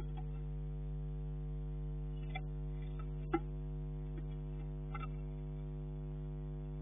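Steady electrical mains hum from the nest-box camera's audio, with a few light taps and scratches as a blue tit moves about on the wooden floor of the box; the sharpest tap comes a little past three seconds in.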